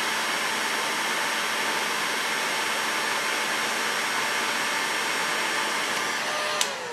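Heat gun blowing hot air at a steady rush onto a model engine's aluminium crankcase, to help loosen the connecting-rod screws. Near the end it is switched off and its fan winds down, falling in pitch.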